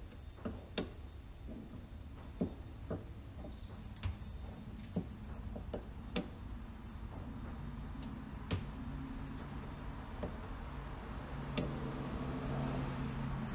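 Scattered light clicks and taps of small hand tools and metal parts as a chainsaw carburetor is unscrewed and taken apart. A low steady hum comes in about halfway and grows a little stronger near the end.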